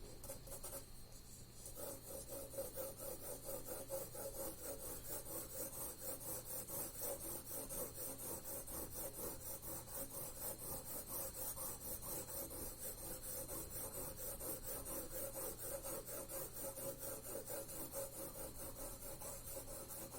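Pencil hatching on paper: quick, evenly repeated scratchy strokes, several a second, shading the tone of a ball along its form. The strokes start about two seconds in.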